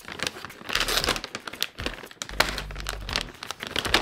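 A snack bag of Innofoods Coconut Keto Clusters being torn open and crinkled by hand: an irregular run of crackling rustles with a few sharper crackles.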